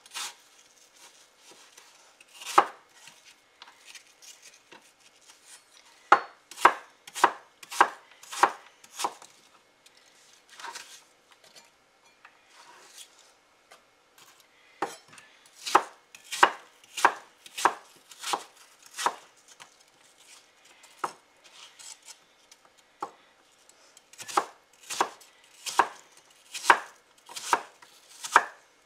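Chef's knife chopping peeled apple into cubes on a wooden cutting board: sharp knocks of the blade on the board, about two a second, in three runs with pauses between.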